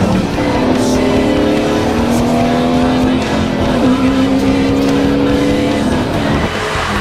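Car engine running as the car is driven through the gears on a manual shifter, with music playing over it.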